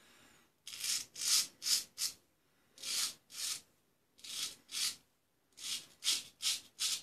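Luigi Rizzo straight razor shaving lathered stubble on the neck: about a dozen short scraping strokes, in quick runs of two to five.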